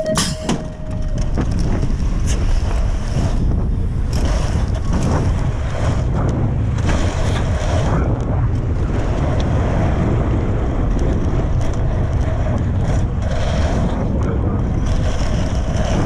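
BMX starting gate's final long beep right at the start as the gate drops with a clank, then loud wind rushing over the action camera's microphone as the bike sprints down the start hill and races round the dirt track.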